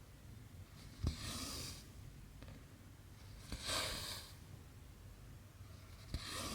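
Cross-stitch needle pushed through the fabric with a small click, then cotton thread drawn through with a soft hiss. This happens three times, about every two and a half seconds.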